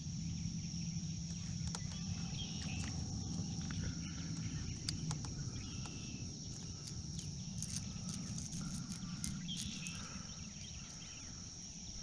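Steady high-pitched insect chorus from the surrounding shoreline, over a low steady rumble, with a few faint clicks.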